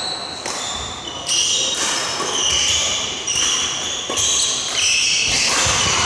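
Court shoes squeaking on a wooden sports-hall floor: many short, high squeaks in quick succession as badminton players move, with a few sharp racket hits on the shuttlecock.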